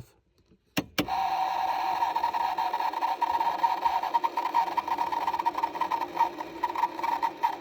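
A car's heater and air-conditioning unit clicking twice, then a steady whirring buzz of a small electric motor that flutters in level. This is the unusual noise the system makes while the blower fan itself will not come on.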